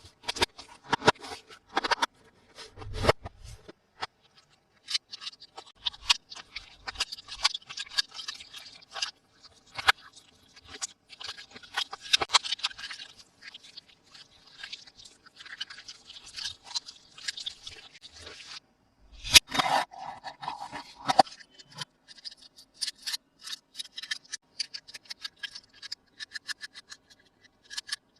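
Toy packaging being handled and opened close to the microphone: rustling, scraping and small clicks in irregular bursts, with a louder rustle about nineteen seconds in.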